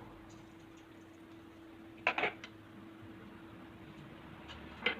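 Light knocks of kitchen utensils against a bowl while a salad is prepared: a quick cluster about two seconds in and one sharper knock near the end, over a steady low hum.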